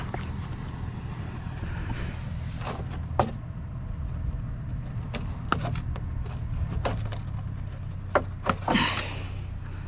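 Truck engine idling steadily, with a series of sharp knocks and clatters of scrap parts being handled, several of them bunched together near the end.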